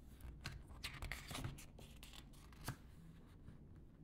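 Faint rustling and brushing of glossy photobook pages being handled and turned, with one sharp tap of paper about two-thirds of the way through.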